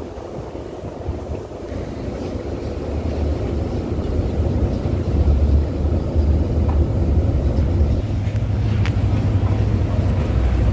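Tugboat's engine running with a low rumble, getting louder about four seconds in, with wind buffeting the microphone.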